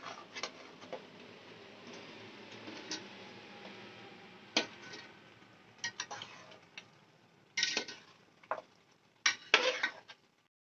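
A metal spoon scraping and clanking against a steel pot as thick mutton korma masala is stirred while it fries. A soft frying hiss runs under the first half, and a cluster of louder scrapes comes near the end.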